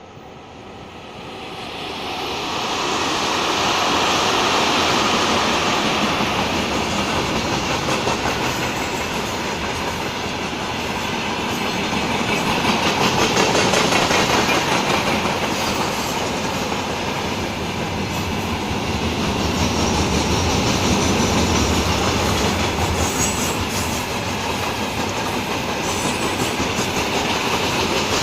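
Freight train hauled by a VL11 electric locomotive coming up and passing close by. The sound builds to a loud, steady rumble within about three seconds, then the wagon wheels clatter over the rail joints.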